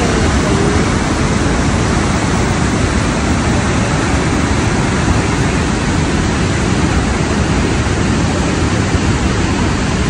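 Loud, steady rushing of a waterfall and whitewater rapids pouring through a narrow rocky canyon.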